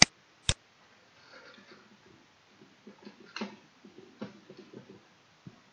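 Two sharp mouse clicks, about half a second apart, at the start, then a run of soft computer keyboard keystrokes from about three seconds in as a word is typed.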